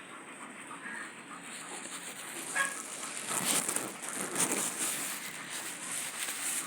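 A dog eating, making irregular noisy mouth sounds that grow louder about three seconds in.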